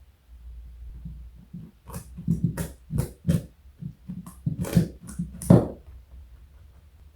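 Rabbit crunching a carrot: a quick, irregular run of about ten crisp crunches, starting about two seconds in.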